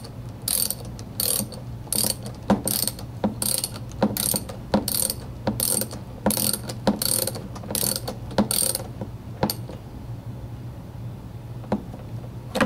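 Ratchet socket wrench clicking in a steady run of short strokes, about one and a half a second, as a spark plug is screwed in and tightened. The ratcheting stops about nine seconds in, followed by a few single clicks.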